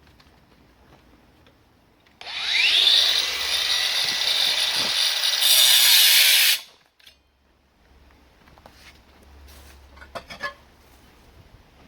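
Makita GA023G 40 V brushless cordless angle grinder spinning up with a rising whine about two seconds in and cutting into a concrete block for about four seconds, then stopping abruptly. A few faint knocks follow near the end.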